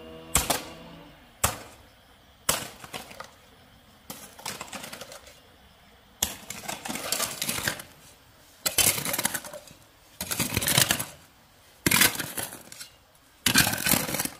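Three sharp knocks, then repeated bursts of clattering and rattling of small hard objects, coming about every one to two seconds.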